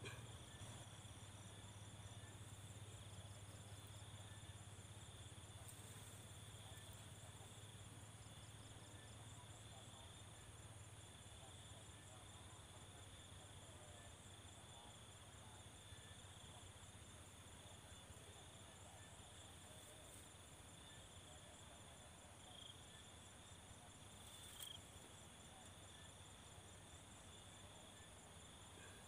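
Faint, steady high chirring of insects in the field, with a few faint clicks.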